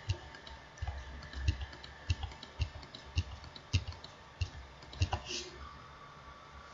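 Computer keyboard and mouse clicking at an irregular pace, about a dozen sharp clicks, as values are typed into table cells. The clicks stop about five and a half seconds in.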